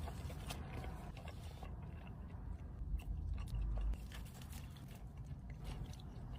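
Close-up biting and chewing of a burger and french fries, with scattered crisp crunchy clicks and wet mouth sounds. A louder low thud runs for about a second a little past three seconds in.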